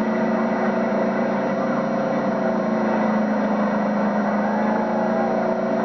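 Demolition derby car engine running with a steady drone, recorded on low-quality VHS audio.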